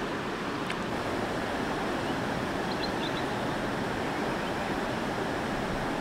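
Steady rush of river water flowing over rocks.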